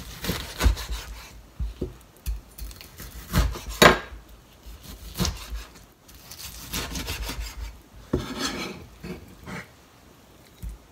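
Kitchen knife cutting raw chicken thigh on a plastic cutting board: irregular knocks of the blade on the board and short scraping strokes. The loudest knock comes about four seconds in.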